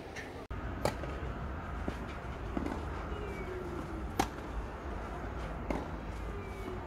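Tennis ball struck by rackets during a doubles rally on a clay court: two sharp hits about three seconds apart, with softer knocks between, over a steady low outdoor rumble. The sound cuts out for an instant about half a second in.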